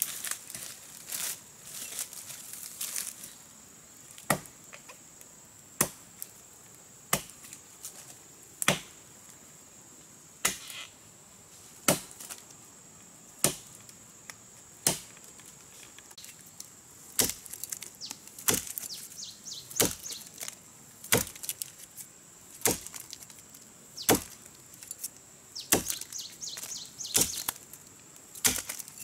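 Small hand axe chopping into the trunk of a standing tree: sharp strikes at a steady pace, about one every second and a half. Before the chopping starts, dry leaf litter crackles underfoot.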